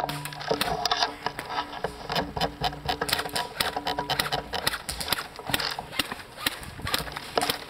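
An uneven string of sharp clicks and taps, a few each second.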